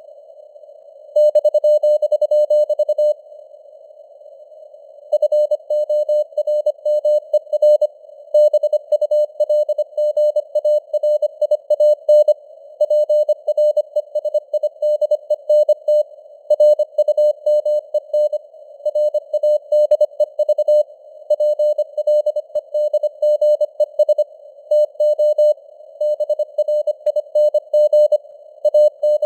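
Morse code (CW) sent at 25 words per minute as a keyed tone of about 600 Hz, dots and dashes over a hiss of simulated radio noise, the signal strength wavering with fading (QSB). Near the start the tone holds unbroken for about two seconds, then pauses in the hiss before the keying resumes.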